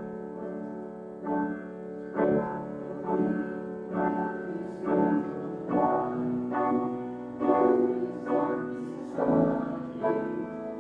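Piano playing a hymn, chords struck about once a second.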